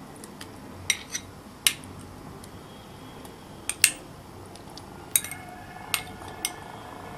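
A utensil clinking against a mixing bowl about eight times, at uneven intervals, as chicken pieces are stirred into a thick batter.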